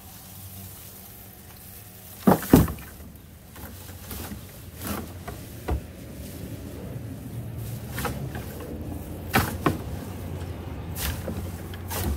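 Dry cut stalks being pitchforked into a plastic wheeled yard-waste cart: a series of knocks and rustles, the loudest a double knock about two seconds in.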